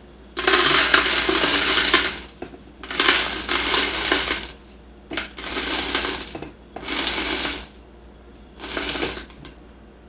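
Dry pickling spice rattling and pattering into an empty glass jar as it is sprinkled in by the pinch, in five spells of a second or two each.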